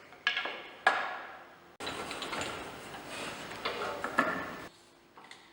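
Knocks and metallic clatter from hands and tools adjusting the milling head on a spindle moulder. Two sharp knocks come first, then about three seconds of continuous clattering and scraping that stops suddenly.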